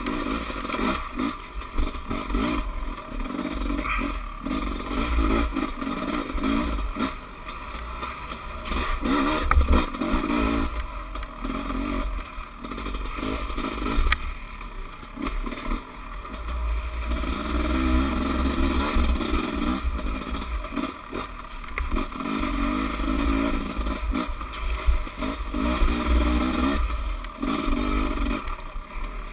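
Dirt bike engine rising and falling with the throttle as it rides a rough, muddy trail, heard from a camera mounted on the bike, with a steady low rumble and the clatter and knocks of the bike over roots and bumps.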